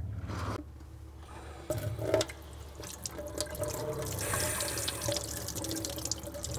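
Kitchen tap running into a stainless steel sink, the stream splashing over hands as raw shrimp are rinsed under it.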